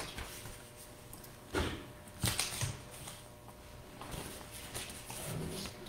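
A few brief clicks and rustles of handling at a desk, about one and a half and two and a half seconds in, over quiet room tone.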